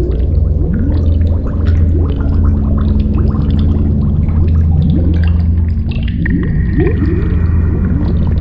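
Soundtrack sound design: a steady low hum with repeated short rising swoops and scattered small clicks, the swoops coming more thickly past the middle. A faint high steady tone joins near the end.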